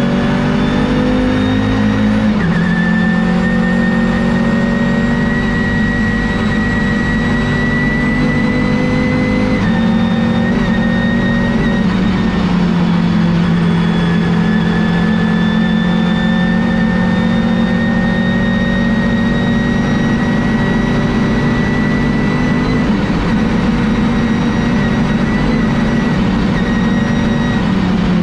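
Turbocharged five-cylinder engine of an Audi S2-R race car under sustained load, its pitch climbing slowly with a few sudden steps as it changes gear, and a thin high whine running above it.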